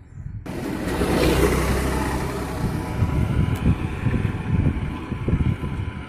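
Wind buffeting the microphone as an irregular, gusting low rumble, with a rushing noise that comes in suddenly about half a second in and swells over the next second.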